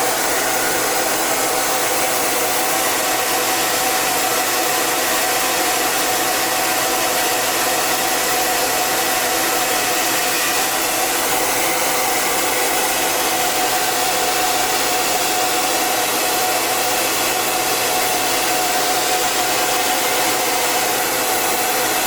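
Hair dryer running steadily: an even rushing blow of air with a steady whine from its motor.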